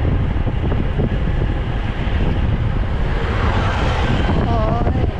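Strong wind buffeting the microphone of a camera riding on a road bike, a steady low rumble from a rider pushing into a strong headwind. A short wavering tone sounds near the end.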